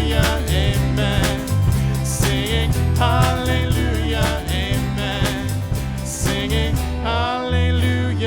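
Upbeat worship song played by a full band, with voices singing over a steady drum beat; the drums drop out about seven seconds in.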